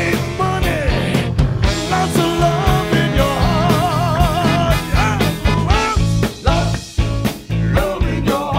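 Live rock band playing: a male lead singer over electric bass, electric guitars, drums and a saxophone section, with a steady drum beat. The singer holds a long, wavering note in the middle.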